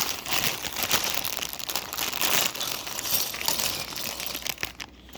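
Plastic LEGO parts bag crinkling and rustling as it is handled, in a dense irregular crackle that thins out near the end.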